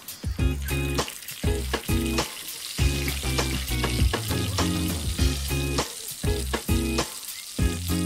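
Lumpia (spring rolls) frying in bubbling oil in a pan, sizzling steadily, with background music playing over it.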